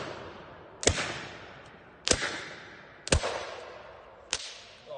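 Black-powder percussion-cap muskets going off one at a time in a ragged volley, four shots about a second apart. Each shot is a sharp crack followed by a fading echo, and the last is weaker.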